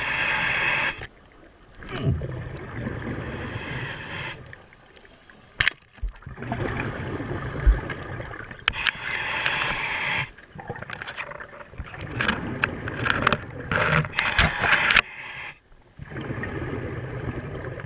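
A diver breathing through a scuba regulator underwater: a short hiss on each breath in, alternating with longer bubbling gurgles as the air is breathed out, every few seconds. A few sharp clicks fall among them.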